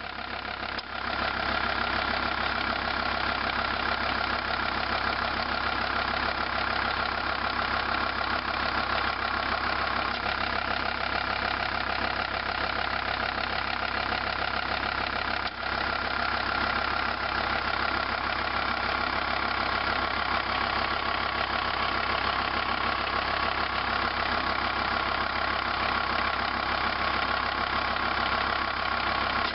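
Volvo V70 2.5D five-cylinder turbodiesel idling steadily, with a click about a second in and another about halfway through as the A/C compressor's magnetic clutch engages and then disengages. The clutch is cycling on and off more often than it should, in the owner's view.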